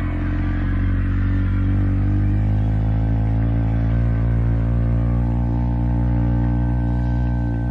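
A gospel bass singer holding one very low note for several seconds, steady and unbroken, in a live concert recording.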